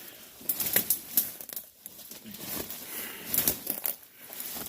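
Dense brush and undergrowth rustling and crackling as someone pushes through it on foot, with a run of irregular sharp snaps of twigs and leaves.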